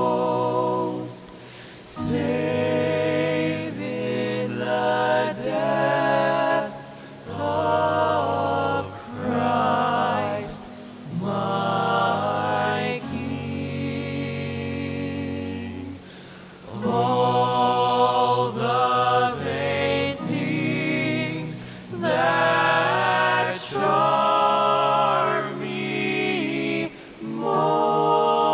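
Young men's vocal quartet singing in close harmony, in phrases of two to three seconds broken by short breaths.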